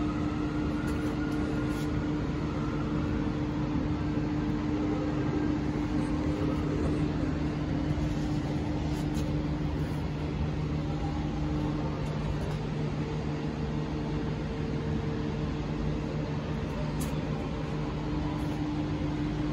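A steady mechanical hum with several held tones, one of which drops out about halfway through.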